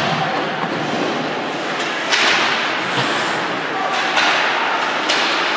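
Ice hockey play in an arena: skate blades scraping the ice in hissing spurts, the loudest about two seconds in, with a few sharp knocks and indistinct voices calling.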